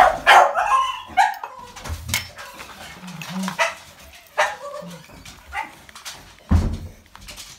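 A dog barking: several short barks at uneven intervals.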